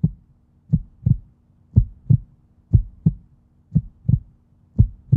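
Heartbeat sound effect: paired low thumps, lub-dub, repeating about once a second over a faint steady hum.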